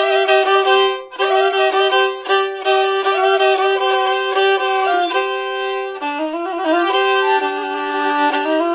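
Black Sea kemençe (three-string bowed fiddle) played with the bow: a quick melody with rapid note changes over a steady drone note, moving to lower notes about six seconds in.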